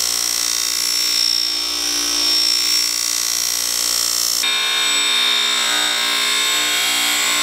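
Bench buffer running with the metal gong of an antique fire bell pressed against its spinning polishing wheel: a steady motor whine with a high hiss of the wheel on the metal. The sound changes abruptly about four and a half seconds in, when work moves to a different wheel.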